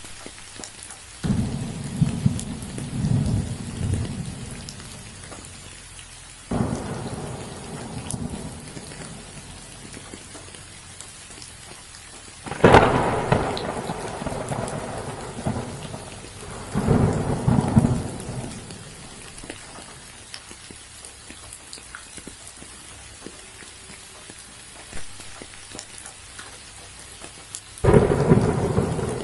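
Steady rain falling, with five rolls of thunder; the loudest is a sharp clap about 13 seconds in that rumbles away over a few seconds.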